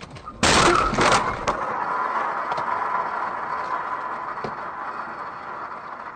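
Car collision with a van: a loud crash of impact about half a second in, a second bang a moment later, then a steady hiss that slowly fades.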